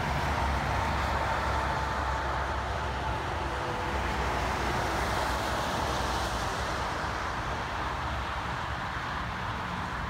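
Steady interstate highway traffic: tyre and engine noise of passing cars and trucks. A deep engine rumble is strongest over the first half, and a faint steady whine fades out about six seconds in.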